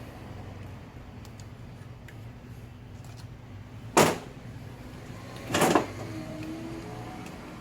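A steady low hum with two loud clunks about a second and a half apart, the second one a little longer.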